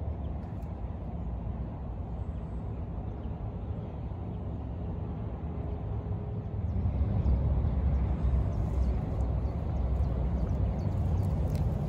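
Low, unpitched rumble of wind buffeting the microphone, louder from about seven seconds in, with faint light ticks and rustles.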